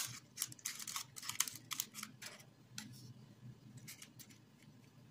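Small plastic spoon scraping and tapping against a paper cupcake liner as crumbly cookie dough is scooped and pressed into it: a quick run of light clicks and rustles over the first two seconds or so, then a few scattered clicks.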